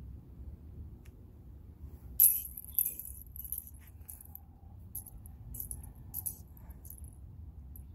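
Small gold jingle bells on a beaded suncatcher jingling now and then, starting about two seconds in with the sharpest, loudest jingle and followed by a run of lighter ones, over a low steady rumble.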